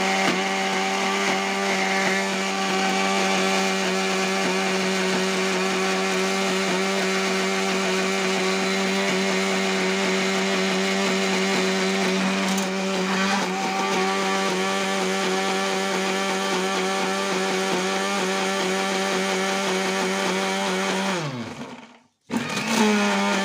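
Electric blender grinding a thick spice paste in its small glass grinder jar, the motor running steadily. About 21 seconds in it is switched off and spins down, then runs again in a short burst near the end.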